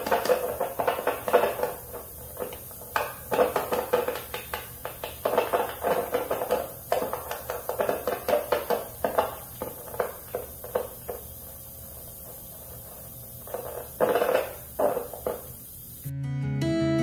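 Screwdriver working the pickup screws and hardware on a solid-body electric guitar: a run of irregular clicks, scrapes and small metal taps over a low steady hum. Near the end it cuts to strummed guitar music.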